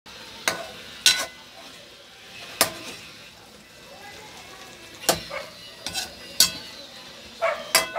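A metal ladle knocking and scraping against a pan of simmering chicken adobo: about eight sharp clinks at uneven intervals over the steady hiss of the bubbling sauce.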